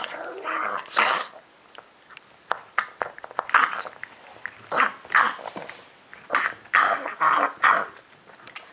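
A pug making noisy sounds while eating, in irregular clusters of short, noisy bursts with brief pauses between them.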